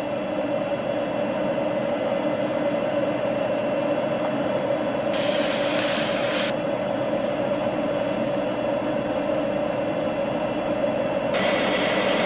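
Electric rotary hammer with a carbide bit running steadily as it drills the primary hole for an undercut anchor into concrete. A short burst of hiss comes about five seconds in and again near the end.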